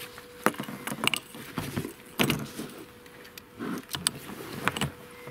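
Handling noise as a freshly caught crucian carp is taken out of a landing net: several irregular sharp clicks and knocks with rustling between them, over a faint steady hum.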